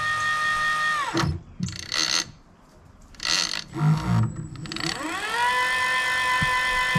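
Hooker Electric motor on a Penn International 80VISW big-game reel, whining steadily, then winding down to a stop about a second in. After a few short noisy bursts it spins back up to a steady whine about five seconds in.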